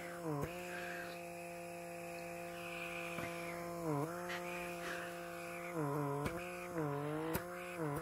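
Pore vacuum (blackhead remover) running on the nose: a steady motor hum whose pitch dips briefly a few times, around a second in, about four seconds in and near six seconds, as the nozzle is worked over the skin. A few faint clicks come through the hum.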